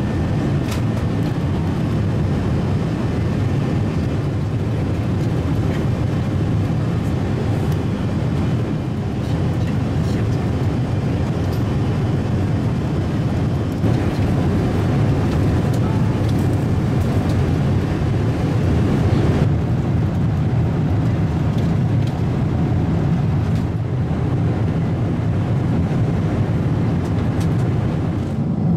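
Steady low rushing cabin noise inside a Boeing 777-300ER airliner in flight, from its engines and the air streaming past the fuselage.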